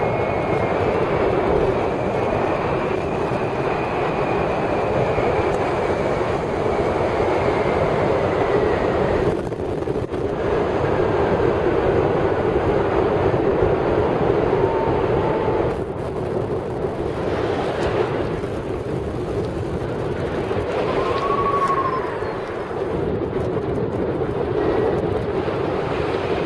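Steady rush of wind on the microphone from fast airflow over a Moyes Litesport hang glider in a high-speed glide.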